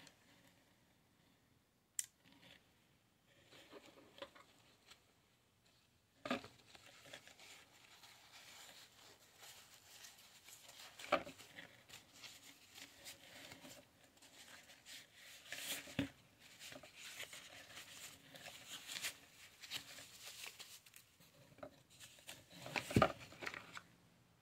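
Clear plastic wrapping crinkling, rustling and tearing as a small item is unwrapped by hand, with a sharp click a couple of seconds in and several sharper knocks of the item against cardboard, the loudest near the end.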